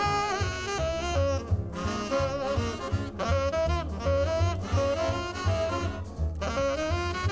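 Instrumental break in a boogie-woogie song: a saxophone plays a melodic solo over a steady bass and drum backing.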